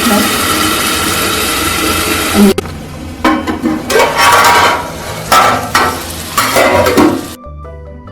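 Spiced masoor dal cooking in a hot kadhai, sizzling hard as a little water is added so it cooks in its own steam. After a sudden break a couple of seconds in, the sizzle comes in four or five separate loud surges. Light tuned music starts near the end.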